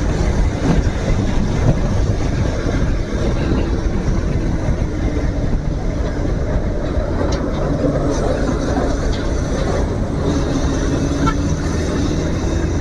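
Royal Enfield GT 650's parallel-twin engine with an aftermarket SC Project exhaust running steadily as the motorcycle is ridden, mixed with wind noise.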